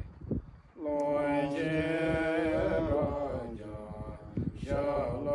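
Buddhist monks chanting a prayer of auspiciousness in long, drawn-out tones, starting about a second in, breaking off for about a second in the middle, then resuming.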